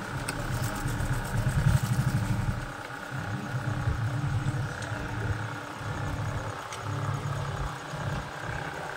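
Low, uneven motor-vehicle engine noise that swells and fades several times, with a few faint clicks.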